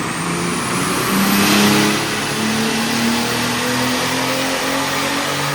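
Turbocharged Mercedes 190E's M103 straight-six running under load, its revs climbing slowly and steadily. A thin high whine rises over the first second and a half, then holds.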